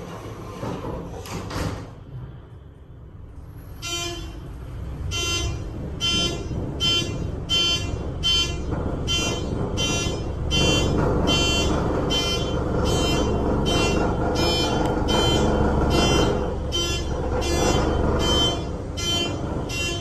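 Fire alarm horns sounding in steady repeated pulses, about three every two seconds, starting about four seconds in. Under them, for several seconds midway, rises the rumble of a high-speed ThyssenKrupp traction elevator car travelling in its shaft.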